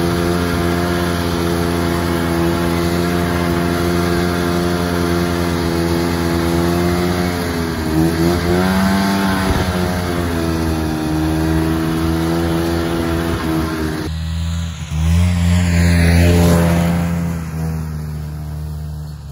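Vintage two-stroke snowmobile engine running at a steady pace under way, easing off and then picking back up about eight seconds in. From about fourteen seconds an engine is heard again, louder, its pitch gliding down before it fades away near the end.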